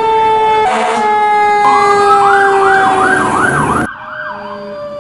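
Emergency vehicle sirens. A steady siren tone falls slowly in pitch throughout, and a second siren cycling quickly up and down, about two to three times a second, joins about two seconds in. The sound cuts off abruptly just before the end, with a brief burst of noise about a second in.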